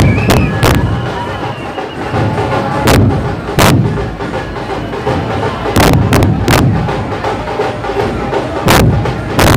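A large troupe of dhol drums playing a dense, loud rhythm. Sharp, cracking accent strikes come in groups of two or three about every three seconds.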